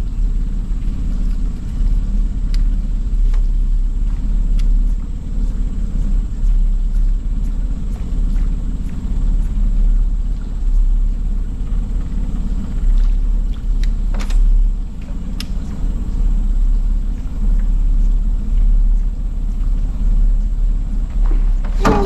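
Loud, uneven low rumble that swells and eases every second or two, with a few faint clicks and a sharper click about fourteen seconds in.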